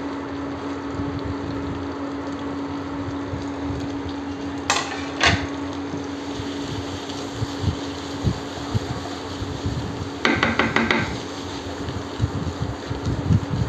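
A wooden spatula knocking and stirring in a frying pan of chopped onions frying in hot oil, over a steady hiss and hum. There are two sharp knocks about five seconds in, and a quick rattle of taps near eleven seconds.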